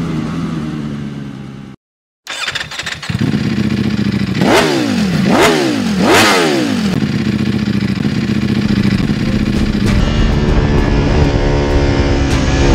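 Motorcycle engine revved hard three times in quick succession, then rising steadily in pitch as it accelerates. A short break in the sound comes about two seconds in.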